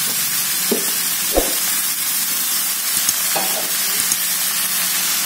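Raw chicken pieces sizzling in hot oil and spice paste in a wok, a steady frying hiss. It is broken by a few short knocks and scrapes of a metal spatula stirring them, the loudest about a second and a half in.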